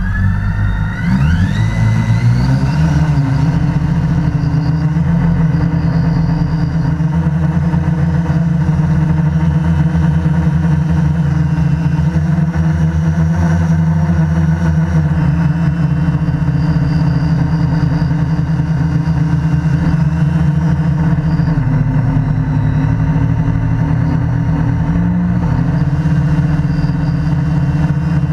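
QAV500 quadcopter's four brushless motors and propellers spinning up with rising whines at takeoff, then running as a steady, loud multi-tone hum in flight, its pitch shifting slightly about two-thirds of the way through. Heard close up from the camera mounted on the frame.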